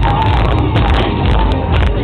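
Loud fairground ride music with a heavy bass beat, with people cheering and shouting over it.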